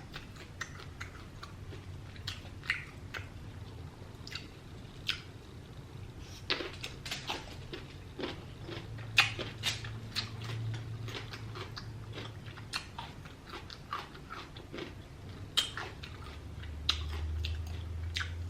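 Close-up chewing and mouth sounds of someone eating lobster tail: irregular wet smacks and clicks. A low hum comes in about halfway and again near the end.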